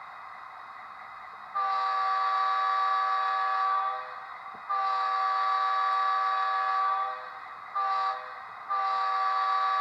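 Sound decoder of an Amtrak F40PH model locomotive playing a K5LA horn sample through its small speaker: a chord of several steady tones blown long, long, short, long, the grade-crossing signal, starting about a second and a half in. A faint steady background sound lies under it.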